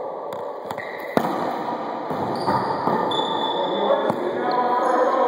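Wallyball play in an echoing enclosed court: sharp slaps of the ball, the loudest about a second in, with short high squeaks of sneakers on the hardwood floor and players' voices in the background.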